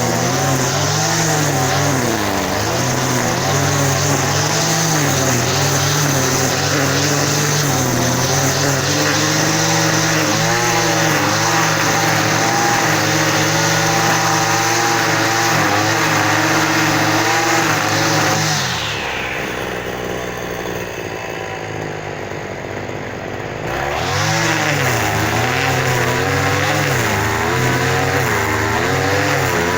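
An engine running loudly in an uneven rhythm, its pitch rising and falling as the revs vary. About nineteen seconds in it drops to a low idle for about five seconds, then picks up again.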